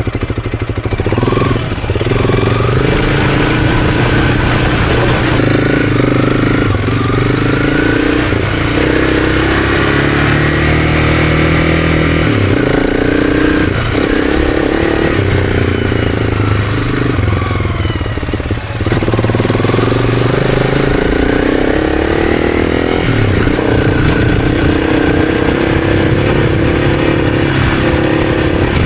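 Honda CRF300's single-cylinder four-stroke engine running under load as the bike is ridden through sand and mud, its revs rising and falling with throttle and gear changes. The engine note briefly drops about two-thirds of the way through.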